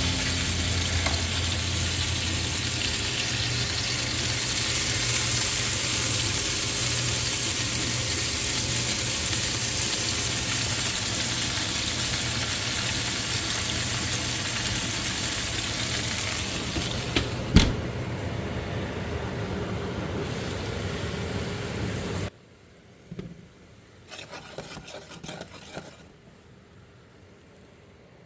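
Chicken pieces sizzling on a hot stovetop grill: a steady frying hiss with one sharp click a little before the sizzling cuts off abruptly about 22 seconds in, leaving a much quieter stretch with a few faint short sounds.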